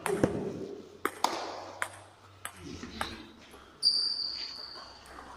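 Table tennis rally: the celluloid ball clicks sharply off paddles and table several times at irregular spacing. Just before four seconds in comes a louder knock, followed by a high ringing tone that lasts about a second.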